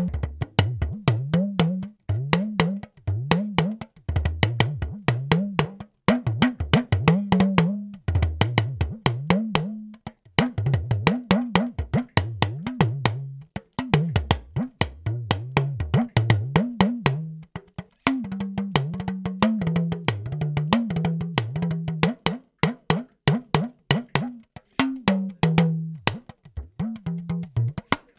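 Recorded talking drum playing back, as captured by an AKG C3000 condenser microphone: quick stick strikes, several a second, with the drum's pitch gliding up and bending down as its cords are squeezed.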